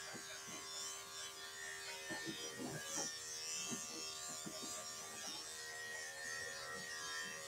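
Corded electric pet clippers running with a steady buzz as the blade is worked through a small dog's coat.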